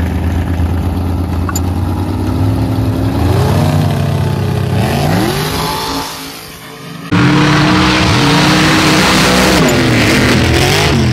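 Modified mud-racing trucks' engines revving hard, their pitch rising and falling through gear changes. About seven seconds in, the sound jumps abruptly to a louder, closer engine at full throttle, still revving up and down.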